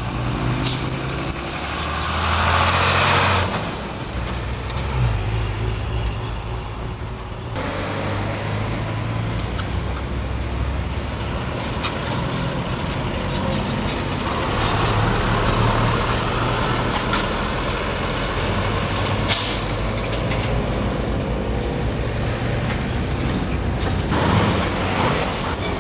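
Heavy diesel lorries running at low speed as they pass, a steady low engine drone. A short hiss of air brakes comes about three-quarters of the way through.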